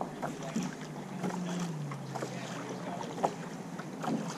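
Canoe paddling: irregular paddle splashes and light knocks of the paddle on the hull, over water lapping against the canoe.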